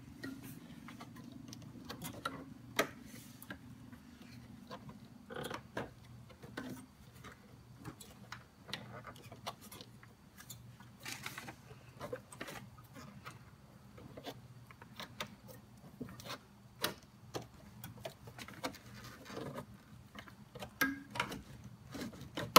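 Irregular small clicks, taps and rustles of hands working a Padkeeper strip's tabs into locating slots along the engine-lid opening, over a steady low hum.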